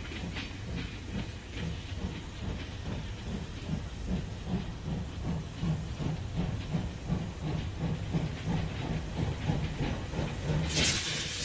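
Steam locomotive sound effect: the engine chuffing in a steady, quick rhythm, with a loud burst of hissing steam near the end.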